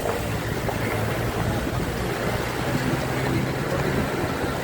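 An engine running steadily: a low, even hum under a noisy rush, with no change in pitch.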